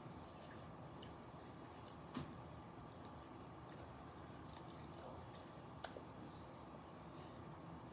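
Faint mouth sounds of someone eating an ice pop: soft wet sucking and biting with a few short clicks, the sharpest about two seconds in and again near six seconds, over a low steady hiss.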